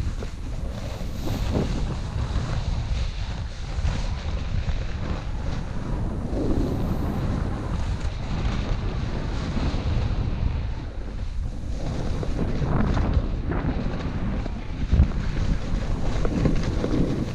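Wind rushing over a GoPro's microphone while snowboarding downhill, with the board sliding and hissing over snow. The noise swells and eases, and there is a short sharper bump about fifteen seconds in.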